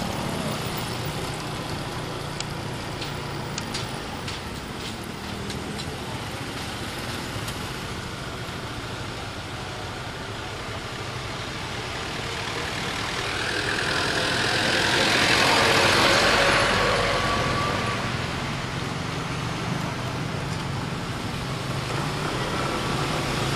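Motorcycle engine running steadily amid road traffic noise. A louder rush of noise swells and fades about two-thirds of the way through.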